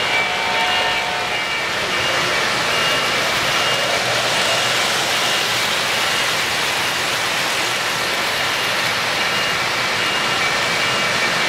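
Three-rail O-scale model trains running close by: a steady rolling whir of metal wheels on the track as freight and passenger cars pass. Faint brief high-pitched tones come and go over it.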